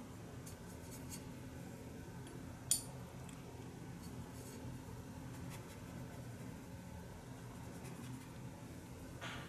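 Quiet steady room hum with scattered faint ticks from a brush and paint palette being handled, and one sharp click nearly three seconds in.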